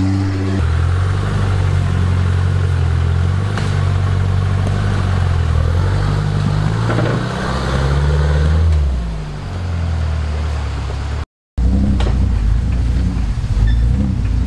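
Off-road jeep's engine working under load on a steep rocky climb, revs rising and then falling. The sound cuts out completely for a moment about eleven seconds in.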